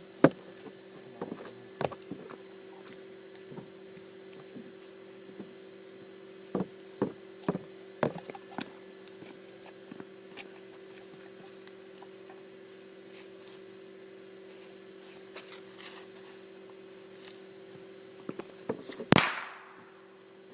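Scattered knocks, taps and clicks over a steady low hum, then a sharp, loud burst about nineteen seconds in that dies away over about a second.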